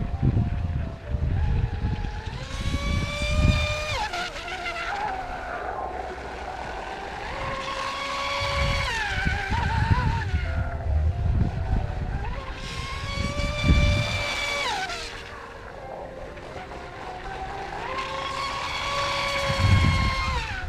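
High-pitched whine of an RC racing catamaran's brushless electric motor, a 3674-size 2200kv, rising as it accelerates down the straights, holding, then dropping away into the turns, four times over. Gusts of low wind rumble sit underneath.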